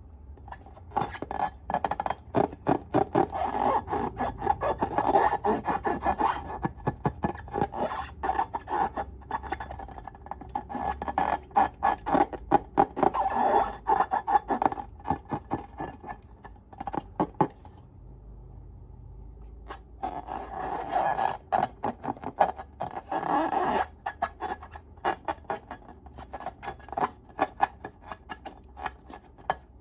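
Slime being stirred and squished by hand: dense runs of quick sticky clicks and scraping, pausing for a couple of seconds past the middle, then resuming in shorter bursts.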